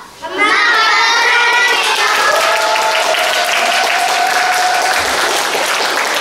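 A class of young children singing together, settling into one long held note, with hands clapping.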